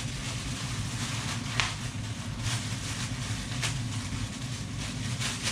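Steady low room hum with a few short clicks, about four in all, as the plastic goggles and their packaging are handled.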